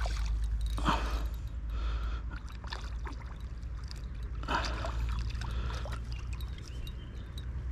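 Water splashing and sloshing in a few short bursts as a hooked carp is drawn into a landing net at the bank, over a steady low rumble.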